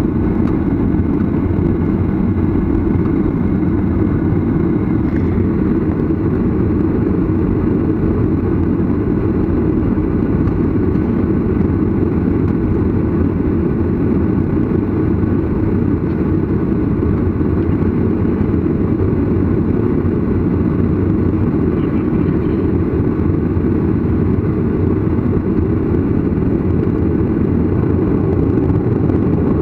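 Cabin noise of a jet airliner taxiing, its engines at low taxi power: a steady, unchanging low noise.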